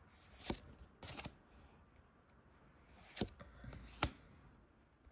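Pokémon trading cards being slid one behind another by hand, giving a few soft swishes and a sharper snap about four seconds in.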